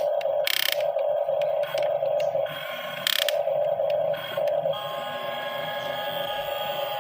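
Small electric motor and pump of an RC hydraulic excavator whining in spurts that start and stop about every second, with two short hisses. In the second half it settles into a steadier whine of several tones.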